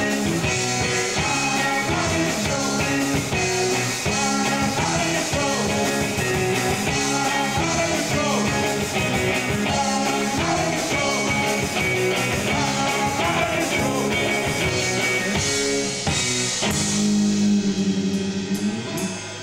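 Live rock band playing, with drums, electric bass and guitar and a singing voice. Near the end the song closes on a held, ringing chord.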